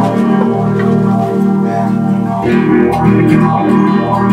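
Live band playing improvised music: plucked guitar over a sustained low drone, with the notes shifting about halfway through.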